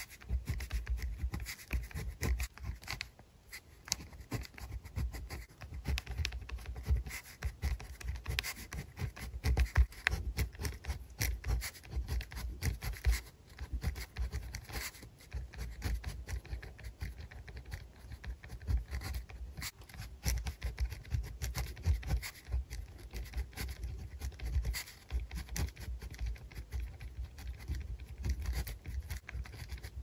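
Pen tip scratching across paper while Chinese characters are handwritten: a steady run of quick, short, irregular strokes and ticks with soft low taps of the pen on the page.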